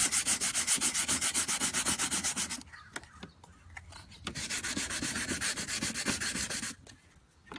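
Sandpaper rubbed by hand in quick back-and-forth strokes, about five a second, over the bonding surface of a carbon fiber hood vent to scuff it for urethane adhesive. The sanding pauses twice, for about a second and a half just before the middle and again briefly near the end.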